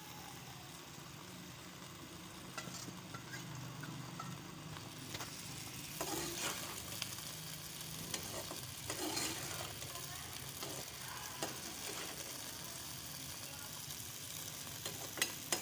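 Diced potatoes sizzling in a steel karahi on a gas burner, stirred with a metal perforated skimmer that scrapes and clicks against the pan. The sharpest scrapes come about six seconds in, again around nine seconds, and just before the end.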